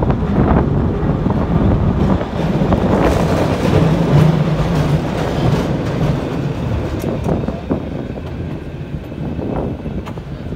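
San Francisco cable car running along its track: a steady rattling rumble of steel wheels on the rails and the cable in its slot, with a few sharp clanks, easing off a little near the end.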